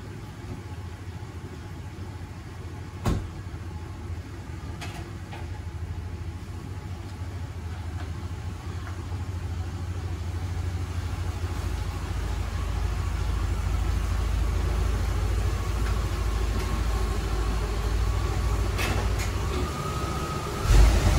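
A 1992 GMC Sonoma's 4.3-litre V6 running at low speed as the pickup creeps up, the low rumble growing louder as it comes closer. There is a single sharp knock about three seconds in.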